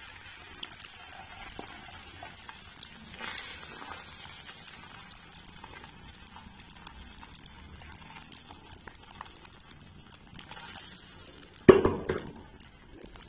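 Beaten egg sizzling gently in hot oil in a non-stick frying pan over a gas flame, with faint crackles. A single sharp knock sounds near the end.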